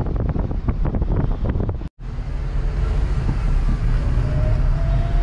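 Wind buffeting the microphone over the low road rumble of a moving vehicle. The sound cuts out for a moment about two seconds in. After that the rumble runs steadier, with a faint rising whine near the end.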